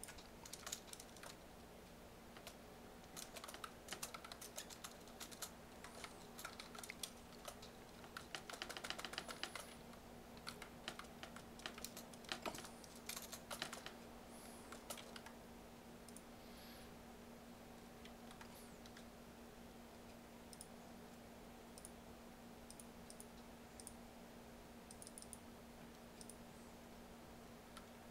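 Typing on a computer keyboard: quick runs of key clicks through the first half, thickest a little before the middle, thinning to a few scattered clicks later. A faint steady hum runs underneath.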